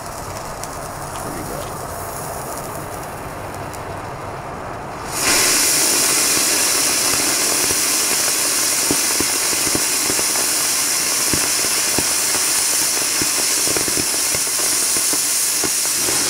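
A slow-burning fuse fizzes for about five seconds. Then a homemade potassium nitrate, sugar and magnesium rocket motor lights suddenly and burns with a loud, steady hiss and scattered crackles, giving hardly any thrust.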